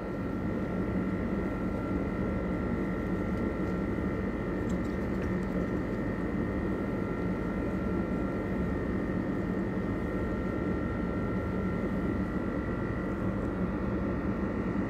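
Steady machine hum, with two faint high tones held over it.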